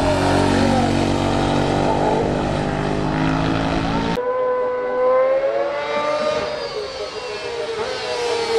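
Racing motorcycle engines at high revs: first a bike running hard through a bend, then after a sudden cut about four seconds in, another bike whose engine note rises a little and then falls as it comes closer.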